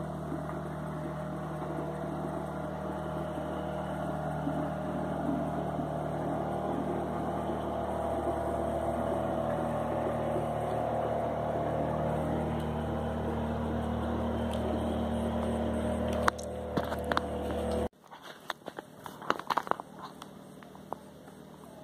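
Boat engine running steadily with a low, even drone that slowly grows a little louder. It cuts off abruptly near the end, leaving faint clicks and crackles.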